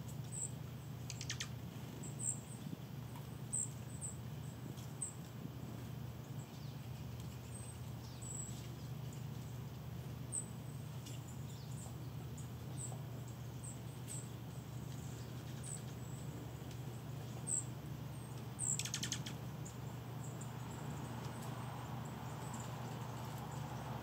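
Small songbirds giving brief, very high chip notes at irregular intervals, with a short noisy rustle just before 19 seconds in, over a steady low background hum.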